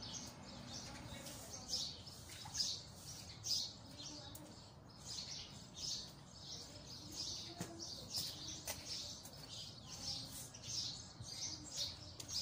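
Broom swishing across a wet tiled floor in a run of short, repeated strokes, about one or two a second.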